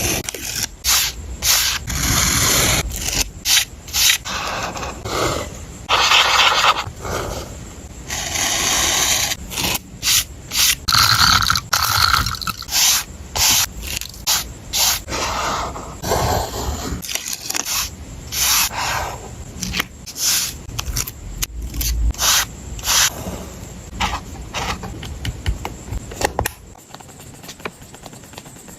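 Paper and stationery being handled on a journal page: a run of short, irregular scraping and rubbing strokes, which get quieter near the end.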